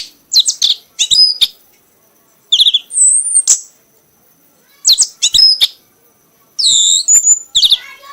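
Kanis merah songbird singing in four loud bursts of sharp, high chirps and quick trills, with gaps of about a second between phrases.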